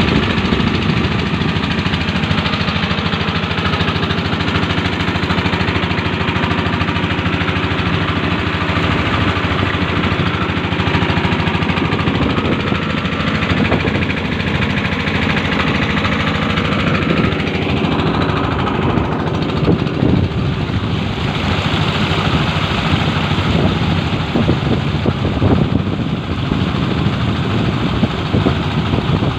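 Small inboard boat engine running steadily under way, with water rushing and splashing along the hull. The rush of water grows stronger in the second half.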